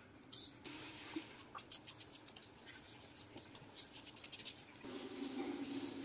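Small kitchen knife slicing onions on a steel plate: a run of quick, scratchy cuts with the blade touching the metal. A low steady hum comes in near the end.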